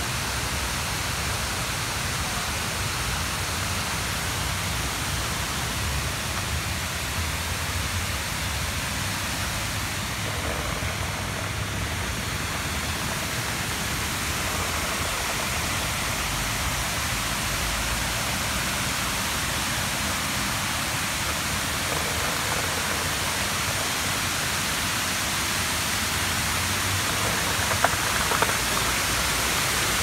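A waterfall rushing: steady, even noise of falling water with a deep rumble underneath, and two brief clicks near the end.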